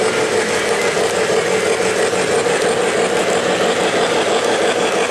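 O-gauge three-rail model trains running on the layout: a steady noise of wheels on track and motors, with a constant hum.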